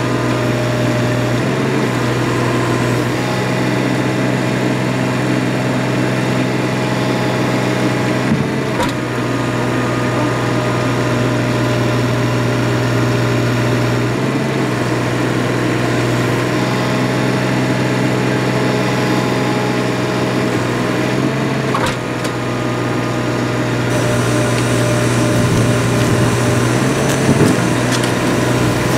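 Engine running steadily to power a hydraulic cable puller pulling new sewer pipe through the old line. Its note steps slightly up or down every several seconds, with a few light clicks.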